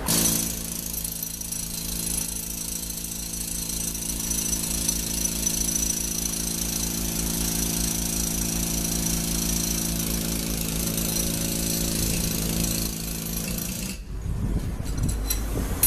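Handheld power tool hammering into the concrete of a bridge wall, running steadily with a fast, even pulse, to break out damaged concrete around a crack. It stops briefly about 14 seconds in and starts up again near the end.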